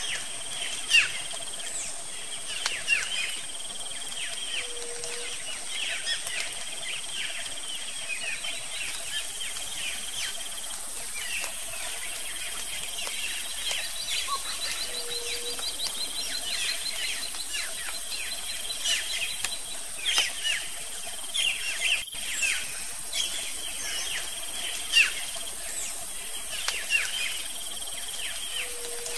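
Wild birds chirping in a busy background chorus of many short, falling notes, over a steady high insect drone. A short low note recurs about every ten seconds, and there is a single sharp click about three quarters of the way through.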